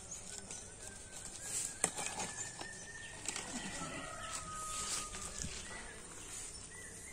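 A machete chopping through a jackfruit's stalk: a few sharp, crunching knocks in the first half, with thin whistled bird calls in the background.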